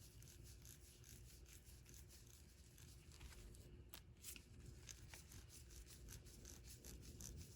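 Restored Craftsman 43784 3/8-inch ratchet being worked, its freshly greased low-tooth-count mechanism giving a rapid run of faint, even clicks. Nice and quiet and smooth: the ratchet works again.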